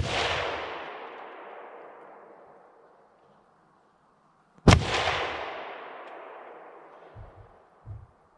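Two rifle shots about four and a half seconds apart, each echoing and dying away over two to three seconds. Two soft low thumps come near the end.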